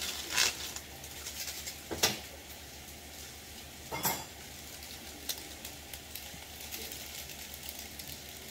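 Bean sprouts and carrots sizzling in a frying pan, with a steady crackle. A few sharp clatters of a utensil against the pan come about half a second, two and four seconds in.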